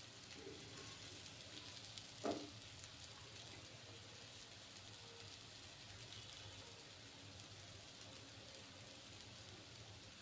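Potato pancakes frying in shallow oil in a kadai, a faint steady sizzle with fine crackles, and one brief knock about two seconds in.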